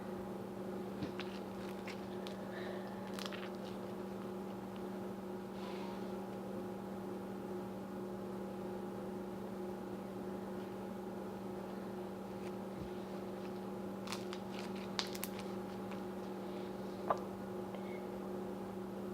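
Steady electrical hum at a low level, with a few faint short clicks and taps scattered through it.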